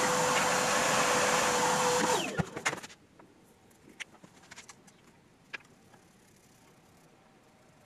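A motor-driven workshop machine runs with a loud vacuum-like whir and a steady whine. About two seconds in it is switched off and winds down, the whine falling in pitch. After that there are only a few faint light clicks.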